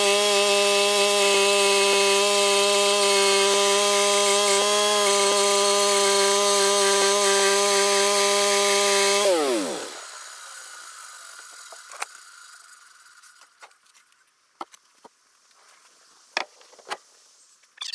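Norwood MX34 portable bandsaw mill running steadily at full speed, its band blade cutting through a cedar log with a hiss over the engine. About nine seconds in the engine is shut off and its pitch falls quickly as it winds down, leaving a few faint clicks and knocks.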